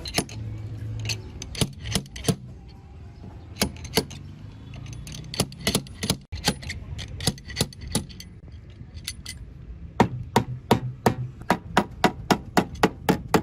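Hammer striking repeatedly with sharp knocks, scattered at first, then a steady run of about three blows a second from around ten seconds in.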